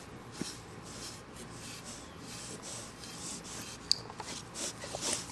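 Scratchy rubbing strokes through a dog's thick, shedding coat, about one or two a second, with a single sharp click about four seconds in.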